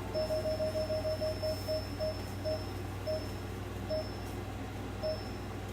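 A game's electronic beeps, short and all at one pitch. They come in a quick run that slows down, the gaps widening until they stop, like a spinner or roulette winding down to its result.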